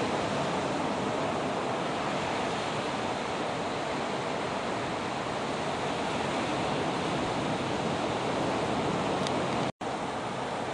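Steady rush of ocean surf breaking. The sound drops out for a split second near the end, at an edit.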